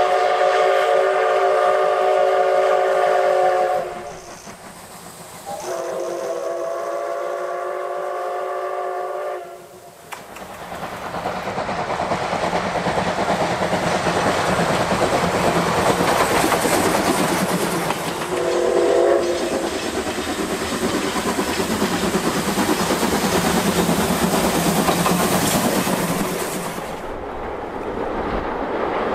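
Steam whistle of JNR C57 180 blown in two long blasts, each held about four seconds. From about ten seconds in, the locomotive's exhaust chuffs loud and fast as it works hard, with one short whistle toot partway through.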